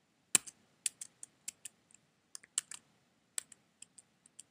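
Computer keyboard being typed on: an irregular run of quick key clicks, the first and loudest about a third of a second in.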